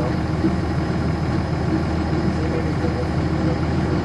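Cummins ISC inline-six diesel engine of a 1999 NovaBus RTS transit bus running steadily, heard from inside the passenger cabin.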